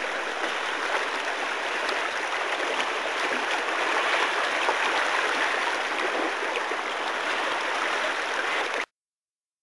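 Fast-flowing river water rushing and gurgling steadily; it cuts off suddenly near the end.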